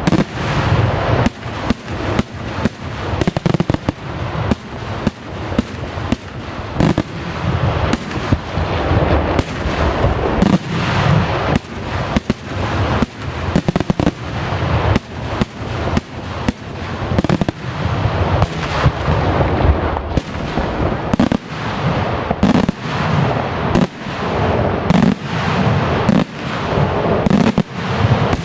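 Daytime fireworks: an unbroken barrage of aerial bursts, many sharp bangs a second overlapping one another.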